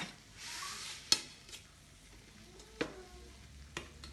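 Spatula knocking against a crepe pan three times as the crepe is folded, the loudest knock about a second in, with a short soft sizzle just before it.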